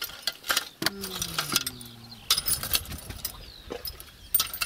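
Old rusty nails clinking as they are dropped by hand into a metal bucket: a scatter of short, sharp metallic clinks.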